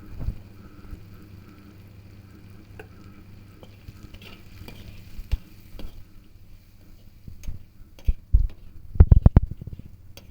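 Food frying in a pan while being stirred with a spoon, with scattered knocks of the spoon against the pan and a quick cluster of louder knocks near the end.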